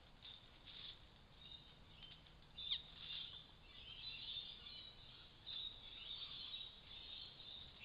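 Faint bird chirps and calls, with one short falling call about two and a half seconds in.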